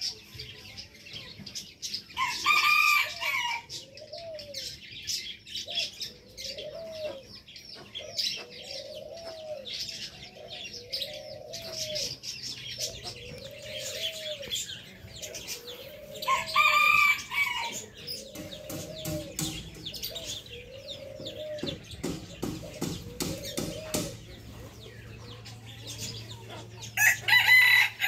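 Roosters crowing: three loud crows, near the start, about midway and near the end. Between the crows, a lower clucking call repeats about once a second among short high chirps.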